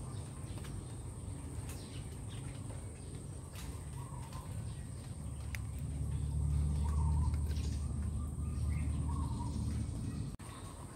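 Outdoor ambience: a low rumble of wind or handling noise on the microphone, louder past the middle, with a steady high-pitched whine and a few short bird chirps. It breaks off abruptly near the end.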